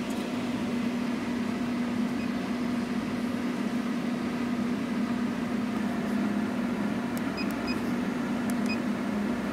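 Steady electrical hum from the powered-up CNC plasma cutting machine. Near the end, three short beeps sound as keys are pressed on the Starfire CNC controller's keypad.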